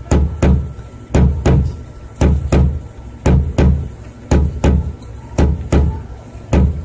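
Heartbeat sound effect: deep double thumps, lub-dub, repeating steadily about once a second.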